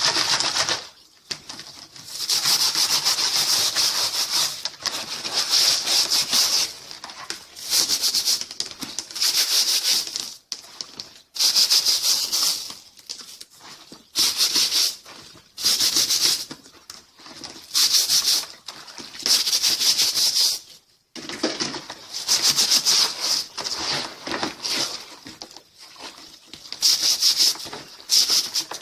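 Dusty plastic fan parts being washed: repeated bursts of hissing, scrubbing noise, each a second or two long with short pauses between.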